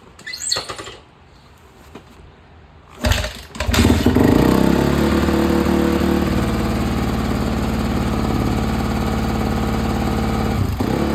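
2008 Honda CRF250R's single-cylinder four-stroke engine being kick-started. A first kick doesn't catch; the second, about three seconds in, fires it, and it revs briefly, then settles into a steady fast idle with the choke on, a little loud.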